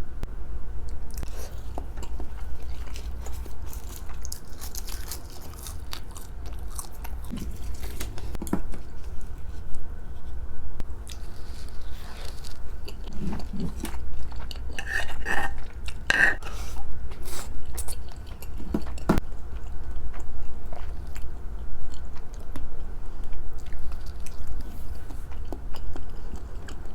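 Close-miked chewing and mouth sounds of someone eating raw salmon sashimi: irregular wet smacks and clicks of biting and chewing, with a steady low hum beneath.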